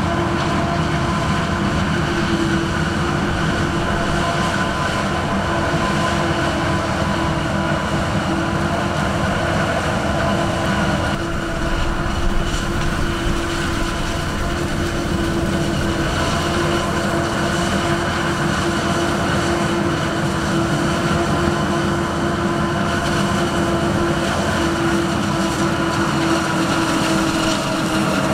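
John Deere 9900i self-propelled forage harvester chopping maize, its engine and chopping gear running at working speed in a steady, unbroken drone with constant hum tones, mixed with the tractor pulling the trailer alongside.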